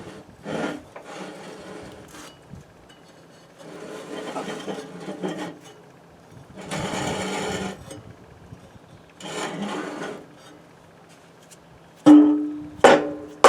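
Rusty blade spindles and pulleys on an old Craftsman mower deck being turned by hand, giving four short scraping, grinding spins about two to three seconds apart. They are stiff and dry, in need of lubrication. Near the end come several sharp metallic knocks that ring on briefly.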